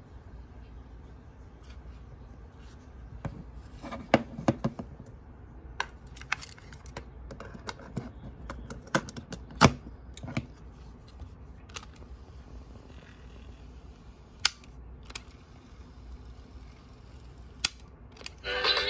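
Scattered plastic clicks and knocks from handling a Sony TCM-450 cassette corder: its cassette door shutting and the unit being set down on and picked up from a wooden desk. The sharpest clicks come about four seconds in and again near ten seconds.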